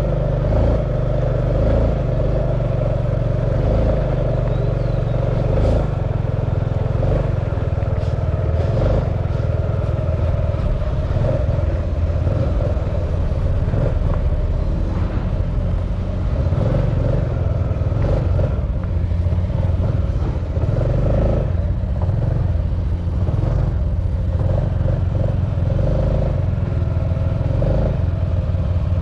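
Steady engine and road noise from a vehicle driving along an unpaved dirt road.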